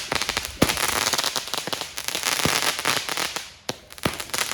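A small consumer firework cake firing its shots. A dense rattle of small cracks runs throughout, with three louder bangs about every second and a half to two seconds.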